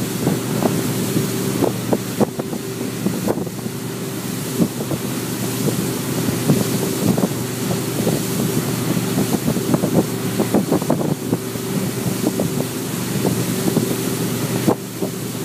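Motorboat engine running steadily at towing speed, mixed with the rush of the wake and gusty wind buffeting the microphone.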